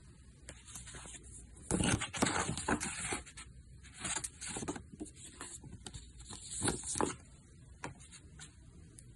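Thick paper handled close up: an envelope and its booklet rustling as they are picked up and leafed through, in several bursts, the longest about two to three and a half seconds in, then shorter ones around four to five and six to seven seconds in, with a few light ticks.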